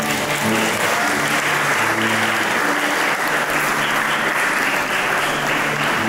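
A crowd of guests applauding, breaking out suddenly and dying away near the end, over instrumental music that keeps playing underneath.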